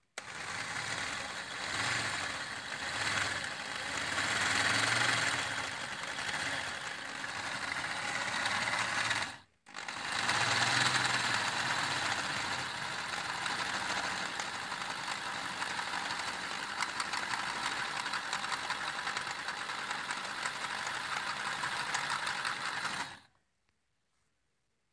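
Corded electric drill with an 11 mm bit drilling into a steel wheel nut, to free a nut that spins together with its wheel stud because the stud's thread in the hub is stripped. The drill runs for about nine seconds, stops for a moment, then runs again for about thirteen seconds before stopping.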